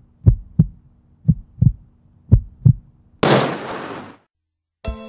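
Countdown intro sound effects: deep heartbeat-like double thumps, about one pair a second, three times. A sharp noisy hit follows and fades away over about a second, and a short buzzy electronic tone comes near the end.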